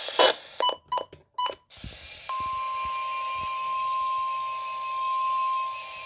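A few short electronic beeps, then about two seconds in the steady single-pitch 1050 Hz NOAA Weather Radio warning alarm tone starts and holds, with a fainter on-off beeping alongside. The tone signals that a warning message follows.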